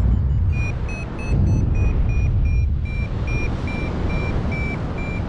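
A paragliding variometer beeping in short high pips, about three a second, starting about half a second in. This is its climb tone, the sign that the glider is rising in a thermal. Under it, steady wind rush on the microphone.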